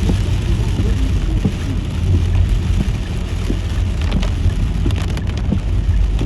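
Steady low rumble of a car driving, with rain hissing and pattering on the car and a few sharp ticks of drops about four to five seconds in.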